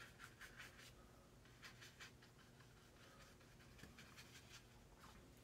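Faint scratching of a paintbrush working short, irregular strokes on watercolor paper, over a low room hum.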